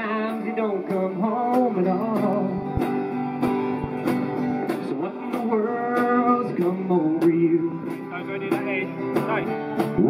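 Live acoustic country band: a man singing over a strummed acoustic guitar and mandolin, with a steady beat.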